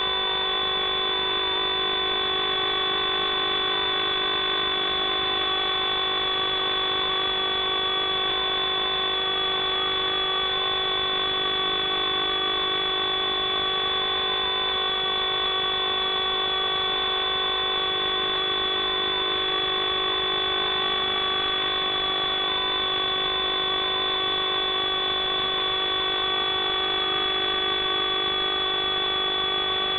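FPV racing drone's electric motors whining steadily in flight: a constant buzzing hum made of several fixed tones, one of them wavering slightly in pitch.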